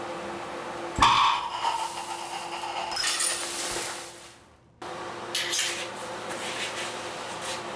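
Carbon disulfide vapour mixture going off in a glass test tube as a barking-dog reaction: a sharp bang about a second in, then a hiss of burning gas that swells again and fades out by about four seconds. A few short rasping noises follow after the midpoint.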